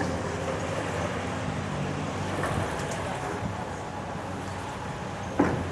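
Hydraulic excavator's diesel engine running steadily as it works, with one sharp knock near the end.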